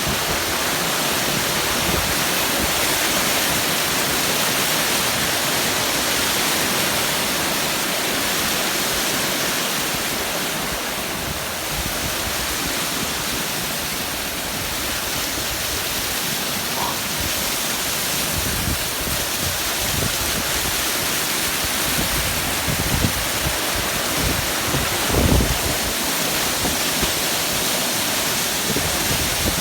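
Waterfall: the steady, full rush of falling water. A few low thumps come in the last third.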